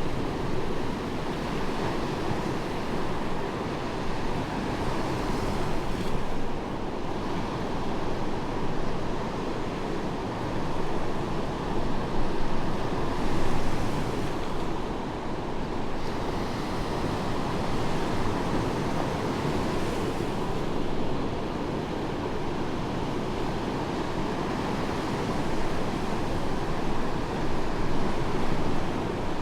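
Medium waves breaking and washing up onto a sandy beach: a continuous surf wash that swells louder every several seconds as each wave comes in.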